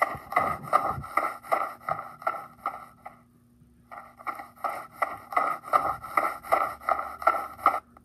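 Cartoon footstep sound effect: short pitched taps repeating about two to three times a second in time with a walking character, pausing for about a second partway through.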